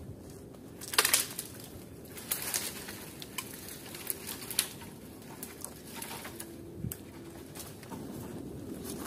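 Footsteps crunching in snow, with irregular sharp cracks of twigs underfoot; the loudest is about a second in.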